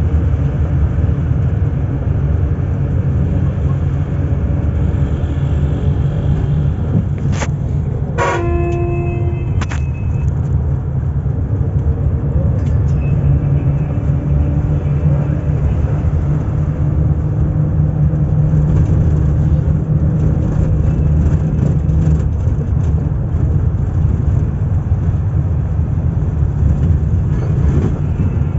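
Cabin sound inside a moving local bus: a steady, loud low rumble of engine and road. Just over eight seconds in, a vehicle horn toots for about a second, with a few sharp knocks or rattles just before and after it.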